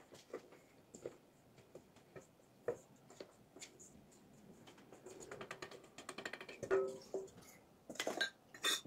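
Dry gravy mix powder poured from a stainless steel bowl through a plastic funnel into a glass mason jar: faint scattered taps and light scraping, with a denser patter partway through and a few louder clinks near the end.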